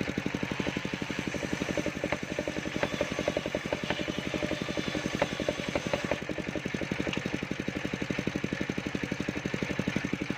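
Engine of a portable circular-saw sawmill running steadily at idle with a rapid, even chugging, and a few light knocks partway through.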